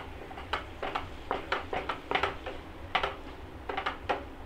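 Wooden spatula clacking and scraping against a non-stick frying pan as crumbled paneer is stirred into fried onion and tomato: short irregular knocks, about three a second. A faint low hum runs underneath.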